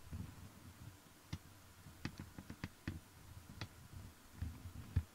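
Hornby OO gauge Ruston & Hornsby 48DS model shunter running slowly on a rolling road: a faint, uneven low whirr with scattered sharp clicks, the loudest near the end.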